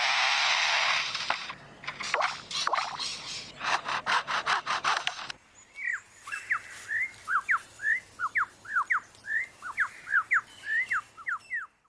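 Superb lyrebird mimicking a chainsaw: a loud harsh rasping with a rapid clatter of clicks for about five seconds. It then breaks into a fast string of short, sweeping whistled notes that stops abruptly near the end.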